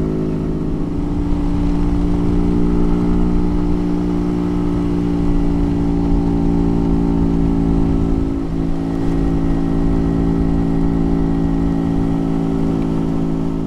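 Honda Pop 100's small single-cylinder four-stroke engine running steadily at cruising speed under the rider, over a low rushing noise. The engine note dips briefly about eight seconds in.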